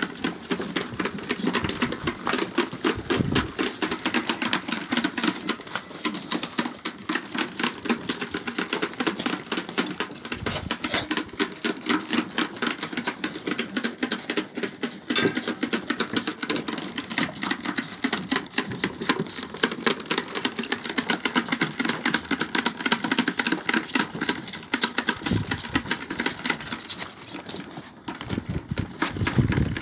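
Several 45-day-old lambs sucking milk from the rubber teats of a plastic multi-teat bucket feeder: a fast, continuous patter of sucking clicks.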